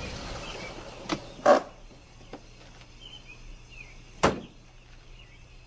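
A few separate sharp knocks, the loudest about a second and a half in and another near four seconds, over a faint background rush that fades early on.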